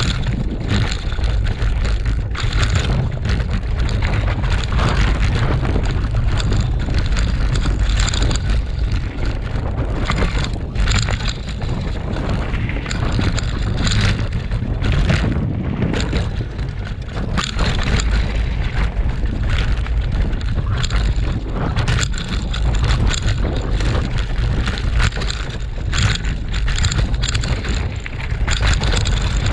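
Mountain bike riding fast down rocky forest singletrack, heard from a handlebar-mounted GoPro: heavy wind rumble on the microphone with frequent clatters and knocks as the knobbly tyres and bike go over rocks and roots.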